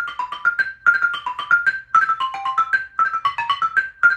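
Xylophone played with two mallets, hands alternating right-left: a fast, even run of struck notes, about eight a second, with each note ringing briefly. The notes are broken chords, played in short repeating groups about once a second, working the same rhythm pattern through a chord progression.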